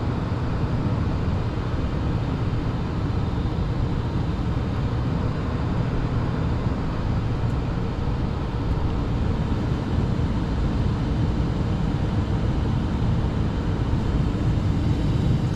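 Residential gas furnace running with its burners lit after relighting: a steady rumble and rush of air.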